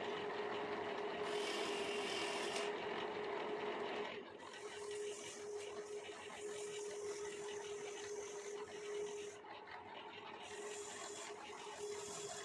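Wood lathe running with a steady hum while a tool scrapes the spinning wood of a bangle blank; the scraping is loudest for about the first four seconds, then continues more quietly.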